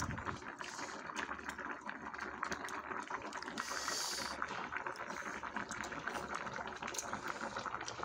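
Hot pot broth at a rolling boil, bubbling with many small crackling pops, with a brief hiss about four seconds in.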